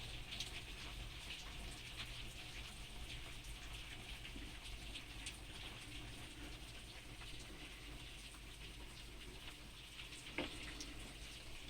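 Rain falling steadily, many small drops pattering, with one slightly louder drop hit about ten seconds in.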